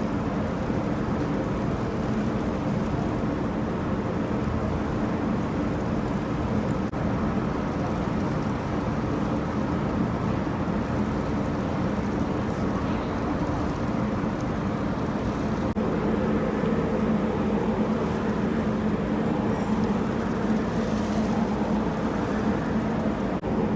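Boat engine running steadily, with water rushing along the hull. It gets a little louder about two-thirds of the way through.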